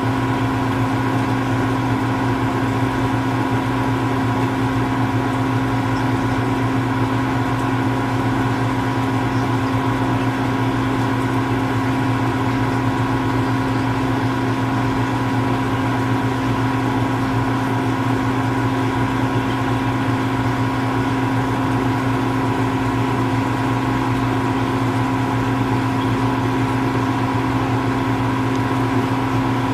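Steady mechanical hum with a few constant low and mid tones, unchanging throughout.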